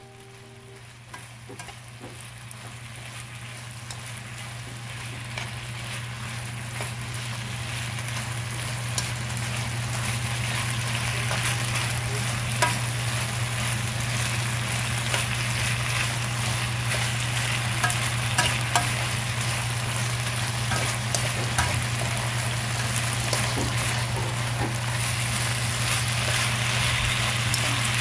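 Marinated pork neck sizzling as it stir-fries in a pan, with metal tongs clicking against the pan as the pieces are turned. The sizzling fades in over the first several seconds and then holds steady, over a low steady hum.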